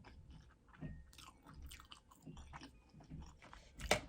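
A person chewing a mouthful of food: irregular soft smacks and clicks, with a sharper, louder one near the end.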